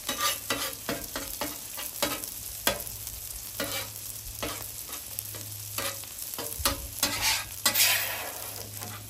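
Beaten eggs sizzling on a hot steel flat-top griddle while a metal spatula repeatedly scrapes and taps across the cooking surface, scrambling them, with a longer scrape near the end as the eggs are gathered into a pile.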